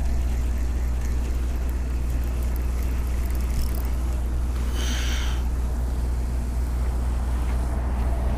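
Steady low outdoor rumble, with a short noisy burst about five seconds in.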